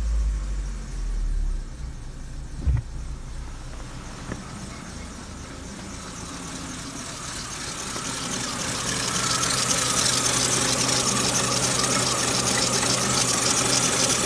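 Citroen Xsara Picasso's 1.8-litre four-cylinder petrol engine (EW7J4) idling, its revs dropping back to idle in the first second or two, with a single low thump a few seconds in. The idle grows louder and clearer about halfway through as it is heard from the open engine bay instead of the cabin.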